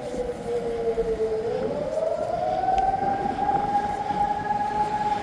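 Civil defence air raid siren sounding an air raid alert. Its pitch sinks for about a second, then rises and holds a steady high note.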